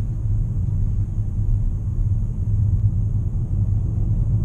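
Steady low rumble inside the cabin of a 2017 Nissan Maxima cruising at an even speed: engine and tyre noise.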